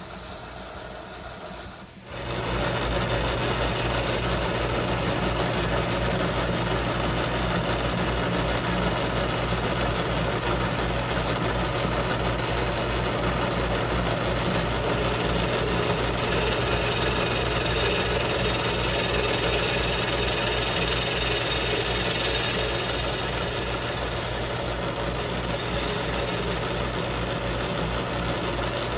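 Yamaha 200 outboard engine starting up about two seconds in, then running steadily with an even low pulse, the repaired motor back running.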